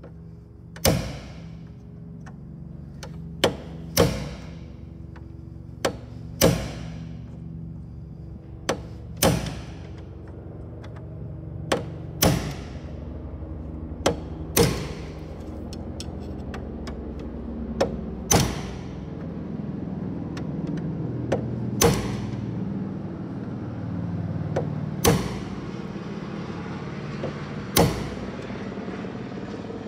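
Sharp metallic clicks, mostly in pairs, every few seconds: hand-tool work on the Cessna 150's nose gear strut as it is fitted back onto the airplane. A steady low hum runs underneath.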